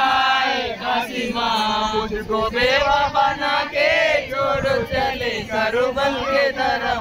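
Loud chanting by a group of men's voices in drawn-out, wavering phrases, a devotional Muharram procession chant.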